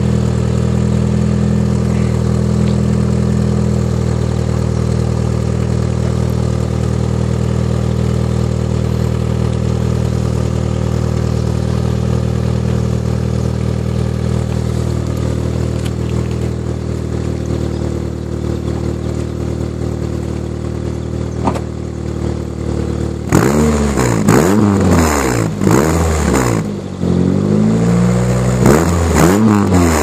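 Exhaust of a 1993 Mitsubishi Colt 1.3 four-cylinder engine, heard at the tip of its aftermarket Mugen-style sport muffler. It idles steadily for a little over twenty seconds, then is revved in a series of quick throttle blips, the pitch rising and falling with each one.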